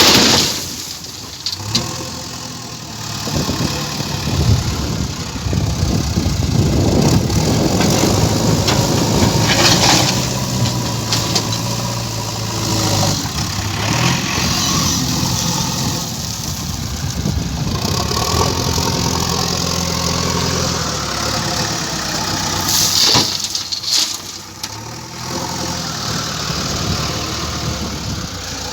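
JCB excavator's diesel engine running, its revs rising and falling as it works, with a few sharp knocks.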